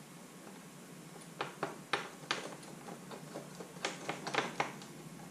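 Light clicks and taps of small metal mounting hardware, an aluminium mounting plate and its nut, being handled and fitted onto the bolts of a batwing fairing. A few clicks come about a second and a half in, and a quicker cluster comes near four seconds.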